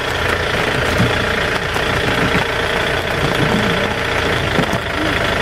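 Jeep engine idling with a steady drone.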